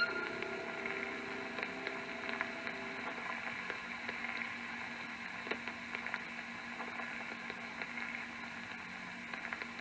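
Soft static-like hiss and hum with faint steady tones and scattered light clicks: the anime's soundtrack between its music and narration, heard through a monitor's speaker.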